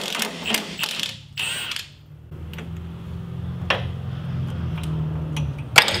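Hand work on a VW Thing's air-cooled engine: clicks and metal rattles as the fan belt pulley is worked to take the belt off, then a steady low hum from about two seconds in, ending just before a sharp click near the end.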